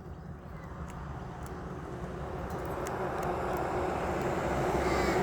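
Vehicle noise growing steadily louder as it approaches, a rushing rumble with a faint steady hum coming in over the second half.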